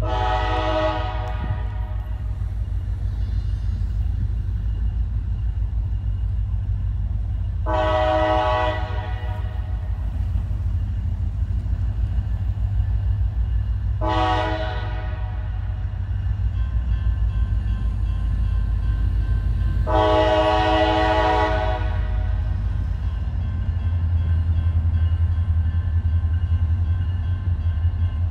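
Distant diesel locomotive air horn on a CSX work train sounding four blasts about six seconds apart, the crossing warning as the train approaches. A steady low rumble runs underneath and grows louder near the end.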